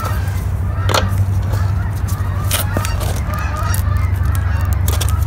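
Hand wrench removing the wheel from a line painter's axle: a few sharp clicks and knocks over a steady low hum.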